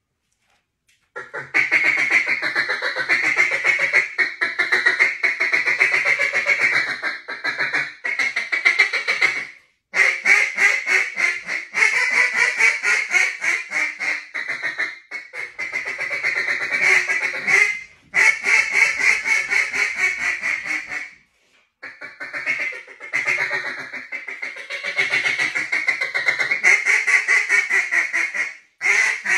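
Halos Calls duck call blown as a contest calling routine: long runs of rapid quacking notes broken by a few brief pauses, starting about a second in.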